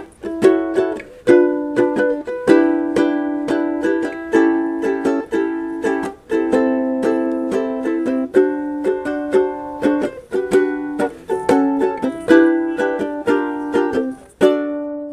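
Intro music: a plucked string instrument playing a lively instrumental tune, each note struck sharply and fading quickly.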